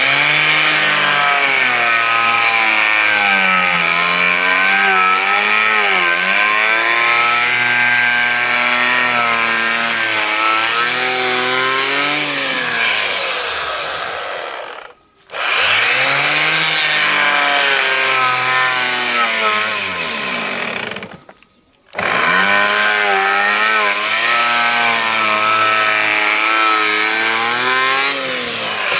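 Electric hand planer cutting wood, its motor whine wavering and dipping in pitch as the blades bite. It runs in three long passes, cutting out briefly twice.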